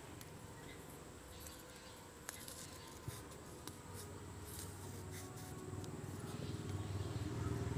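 A few faint clicks and light scrapes of a small steel spoon being handled over a batter bowl. A low hum grows steadily louder through the second half.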